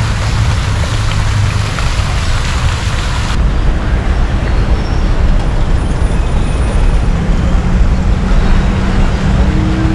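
Loud, steady low rumble with hiss over it. The upper hiss drops off abruptly about three seconds in.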